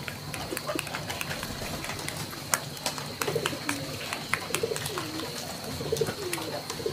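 A dove cooing, a run of low wavering coos starting about three seconds in, with scattered sharp clicks and a faint steady high tone underneath.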